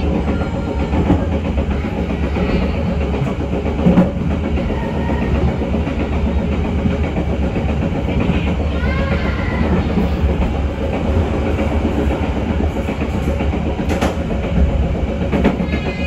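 Loco-hauled passenger coaches running along the track: a steady rumble of wheels on rail with clickety-clack, and sharp knocks about four seconds in and again near the end.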